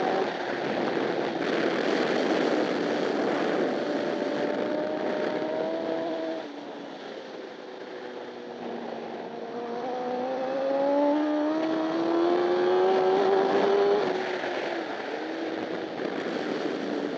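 Honda CBR1000RR superbike's inline-four engine at racing speed, heard onboard with heavy wind rush. About six seconds in it comes off the throttle and the note drops, then it pulls with a long rising note before easing off again near the end.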